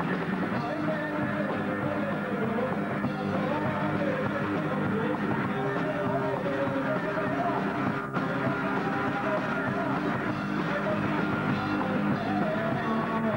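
Live rock band playing, with electric guitar and drums, picked up by a camcorder's microphone. There is a momentary dropout about eight seconds in.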